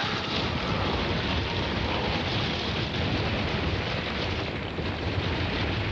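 Cartoon sound effect of a vehicle crashing through a sandstone crust amid pouring sand: a steady, dense rushing noise over a deep rumble.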